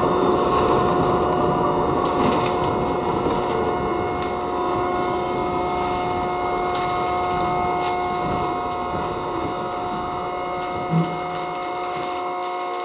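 R68 New York subway car braking to a stop in a station: the wheel-on-rail rumble fades as it slows, under a steady high whine. A few light clicks and one short thump come near the end.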